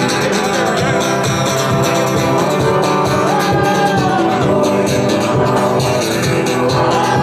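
Background music: an upbeat track with a steady beat and a melody line.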